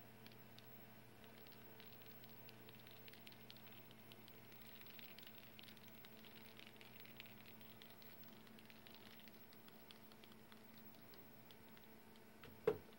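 Near silence: room tone with a faint steady hum and faint scattered ticks, broken by a single sharp knock near the end.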